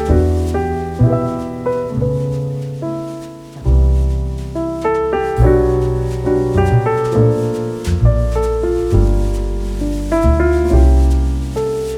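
Background piano music: notes struck one after another and left to decay over low sustained bass notes, at a calm, even pace.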